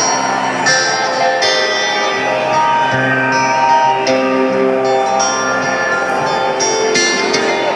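Acoustic guitar played live on stage, single picked notes and chords ringing out one after another.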